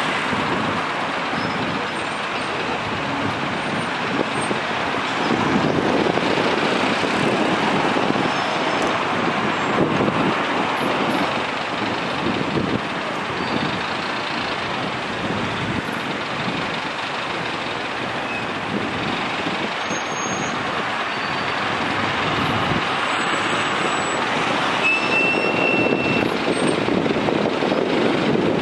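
Steady noise of congested road traffic: many cars, minibuses and buses idling and creeping in a jam. A brief high-pitched tone sounds near the end.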